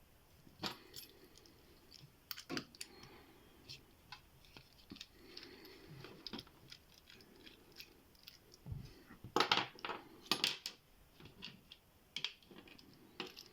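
Small metallic clicks and clatter of hand tools and lock parts being handled as a padlock is taken apart, with a louder burst of clatter about nine to ten seconds in.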